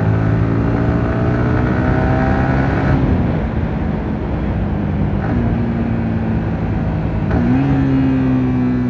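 Yamaha R15 V3's 155 cc single-cylinder engine running under way, with wind noise. Its note climbs for about three seconds, drops a step about three seconds in, and steps back up near the end.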